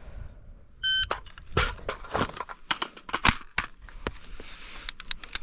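A short electronic beep about a second in, then a string of gunshots at irregular intervals that runs through the rest of the stretch.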